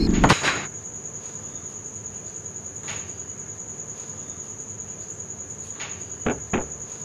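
A door bangs shut just as the music cuts off, then crickets keep up a steady high trill, with a few soft steps and two sharper knocks near the end.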